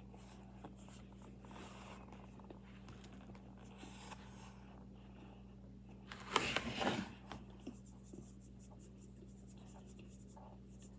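Soft scraping and rubbing close to the microphone, with a louder rustling burst a little over six seconds in, over a steady low hum.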